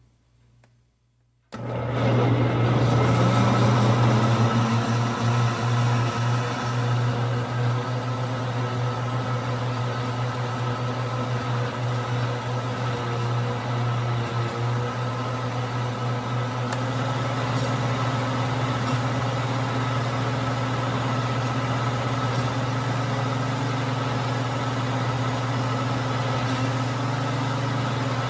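Electric blender switched on about a second and a half in: the motor spins up quickly and then runs steadily at high speed with a loud hum. It is loudest for the first few seconds, then settles a little quieter.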